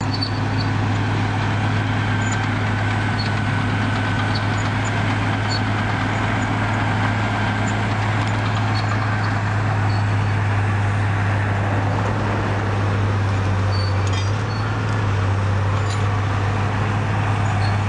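A heavy diesel engine idling steadily with a deep, even hum.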